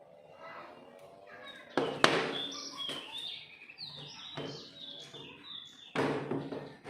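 Two sharp clicks about two seconds in, followed by a few seconds of small birds chirping in quick, high, stepping notes.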